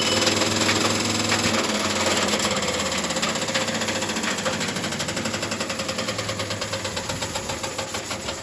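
Candy washing machine running a spin with a piece of metal loaded inside, the motor humming under a heavy rattling and banging from the drum. Over the second half the hum fades and the loudness falls, leaving an evenly repeated knocking.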